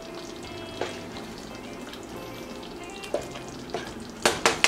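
Pan of chicken in tomato sauce simmering on the stove, a steady sizzle with a few soft pops. Two sharp clicks about four seconds in stand out above it.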